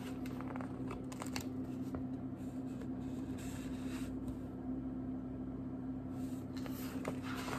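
Faint rustling and light clicks of a picture book's pages being handled as the open book is held up, over a steady low electrical hum.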